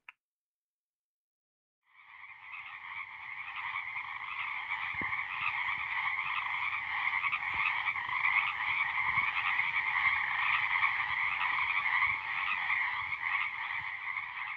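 A dense, continuous chorus of many frogs calling, fading in about two seconds in after silence.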